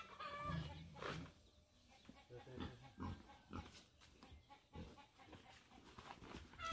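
A domestic pig grunting several times, faintly.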